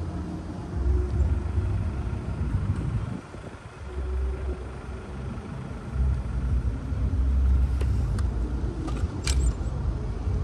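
Wind buffeting the phone's microphone in gusts: a low rumble that swells and drops away several times. A short sharp sound comes near the end.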